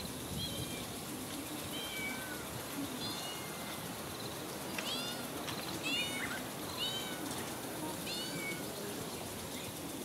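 A cat mewing: about eight short, high-pitched mews that fall in pitch, spaced roughly a second apart, over a steady background hiss.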